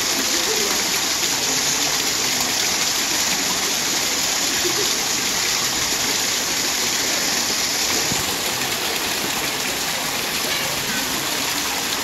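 Small artificial waterfall: thin streams of water splashing into a shallow pool, making a steady hiss that softens slightly about eight seconds in.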